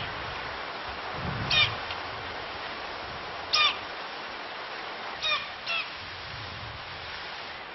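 Klipspringer calling: short, sharp whistled calls, one about a second and a half in, another about two seconds later, then a quick pair near the end, over a steady hiss.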